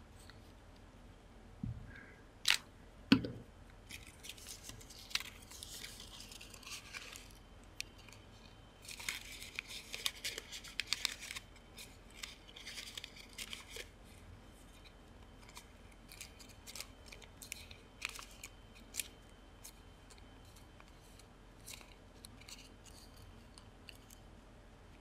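Folded origami paper being handled and glued with a glue stick: a few sharp clicks and knocks in the first seconds, then several stretches of crisp paper rustling and rubbing as the pieces are glued and pressed together, with sparse light ticks afterwards.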